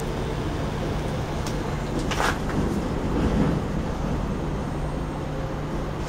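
Microwave oven with its cover removed, running: the high-voltage transformer and magnetron give a steady hum under the noise of the cooling fan. A brief noise about two seconds in.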